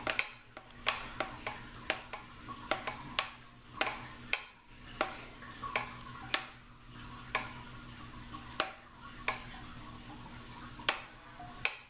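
Plastic wrappers being peeled off individually wrapped cheese slices: the film crackles and snaps in sharp, irregular clicks, over a steady low hum.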